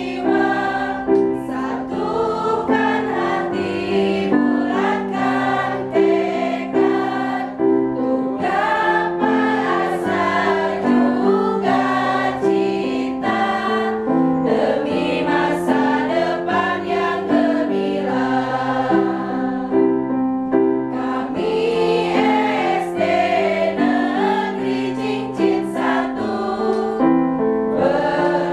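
Group of voices singing a school march song to electronic keyboard accompaniment, the keyboard chords changing in step with the tune.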